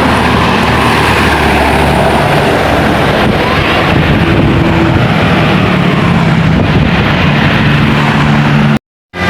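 Large bus driving past close by: its diesel engine running under loud, steady road and wind noise, with no horn sounded. The sound breaks off abruptly near the end.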